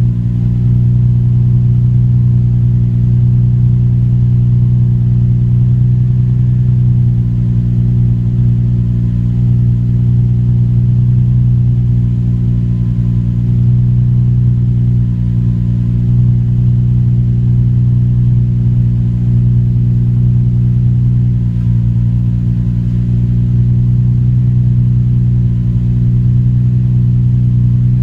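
2005 Nissan 350Z's 3.5-litre VQ35DE V6 idling steadily just after a cold start, heard at the tailpipe through its A'PEXi aftermarket exhaust, with an even pitch that does not change.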